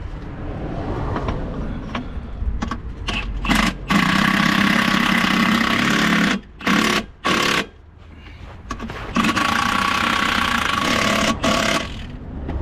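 Impact wrench running in the gearbox bolts in bursts: a long run about four seconds in, two short blips, then another long run near the end.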